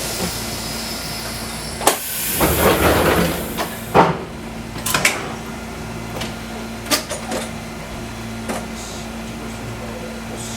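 Inside a Fukui Railway 200-series railcar: a steady electrical hum, a sharp clunk about two seconds in followed by a rush of air lasting a second or so, then a string of separate sharp clicks and clunks.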